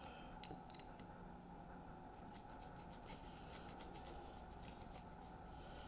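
Faint scratching and light clicks of a screen spline roller pressing spline into the groove of a window screen frame.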